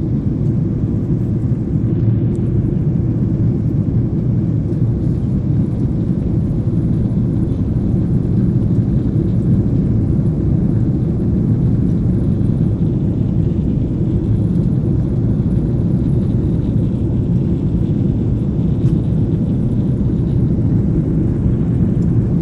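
Steady low rumble of an airliner heard from inside the cabin: the even drone of the engines and airflow, unchanging throughout.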